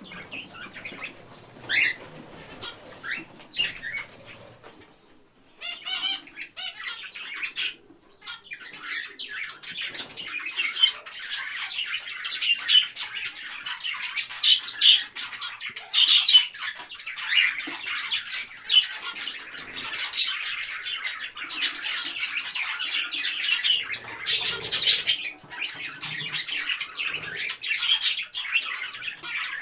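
Parrot squawking and chattering: a few separate harsh calls at first, then from about eight seconds in a dense, rapid run of short squawks and clicks.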